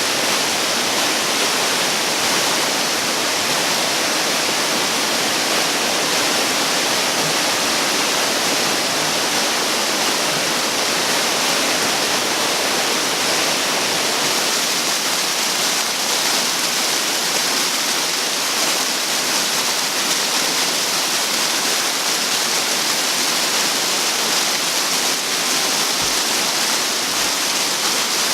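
Mingo Falls waterfall: a steady, loud rush of falling water, unbroken throughout.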